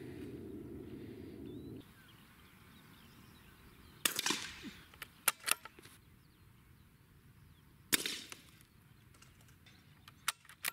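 Two shots from a sound-moderated CZ .22 rimfire rifle firing Winchester subsonic rounds, about four seconds apart, each a sharp crack with a short tail. A few lighter clicks come between and after the shots.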